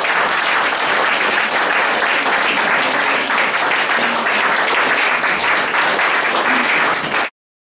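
A roomful of people applauding steadily, many hands clapping at once; the sound cuts off suddenly near the end.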